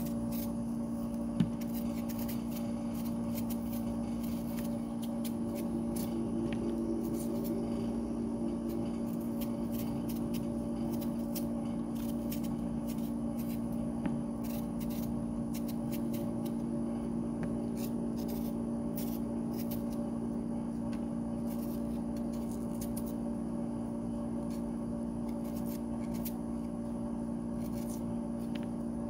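Small knife peeling a raw potato by hand: faint scraping and scattered light clicks, with one sharper click about a second and a half in, over a steady hum.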